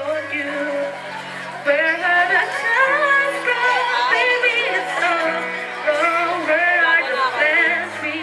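A female singer sings a wavering, run-filled vocal line live over a pop backing track of sustained chords and bass notes.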